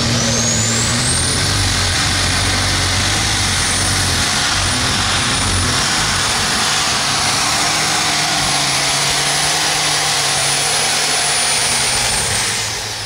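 Light super stock pulling tractor's turbocharged engine at full power during a pull. A high turbo whine rises in the first second or so and holds, then the engine backs off and the whine falls away near the end.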